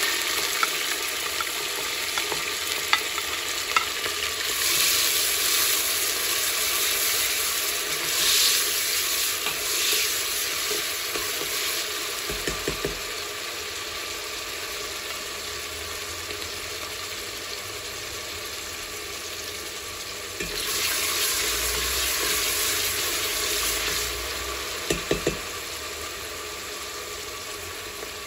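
Sliced onions sizzling in hot oil in a steel pot. The sizzle is strongest right after they go in and slowly eases, swelling again a couple of times, with a few light clicks.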